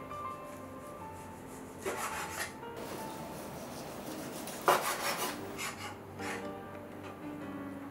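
Chef's knife slicing boiled Sichuan cured pork on a wooden cutting board: a few short cutting strokes, the loudest about five seconds in, over soft background music.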